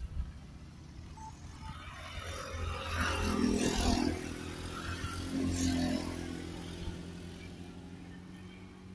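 Road traffic passing close by: a motorcycle swells up and goes past about three to four seconds in, and a second vehicle follows about two seconds later, then the noise fades away.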